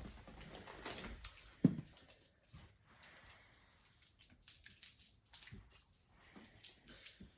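Plastic wrapper of a caramel apple lollipop crinkling in scattered rustles as it is pulled open, with one sharp knock a little under two seconds in.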